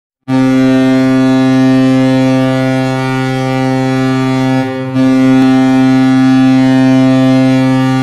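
Colorado Avalanche goal horn sounding to signal a goal: a loud, low-pitched, steady horn blast, a short break about four and a half seconds in, then a second long blast.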